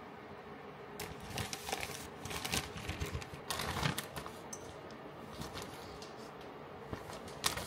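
Zip-top plastic bag rustling and crinkling as it is handled and marinated pork skewers are slid into it, the rustles mostly in the first half, with a sharp click near the end.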